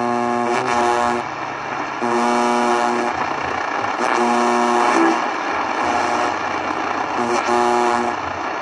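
Broadcast audio from a Sony ICF-7600A portable radio's speaker: music of held notes, each about a second long with short breaks between them, over a steady hiss of radio noise.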